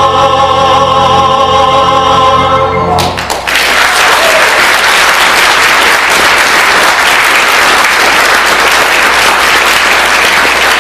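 A cantor with clarinet, piano and bass holds the final chord of a piece, which stops about three seconds in; an audience then breaks into steady applause.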